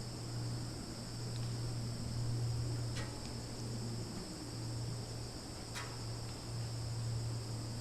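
Summer insect chorus of crickets and cicadas: a steady high-pitched buzzing drone, over a low steady hum, with two faint short clicks about three and six seconds in.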